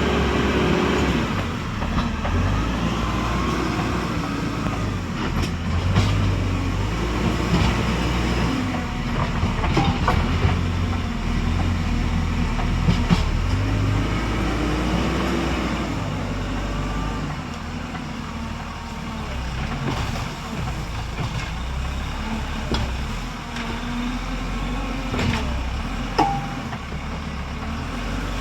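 Tractor's diesel engine running and working, its pitch rising and falling as it revs up and down, with scattered metallic clanks and knocks.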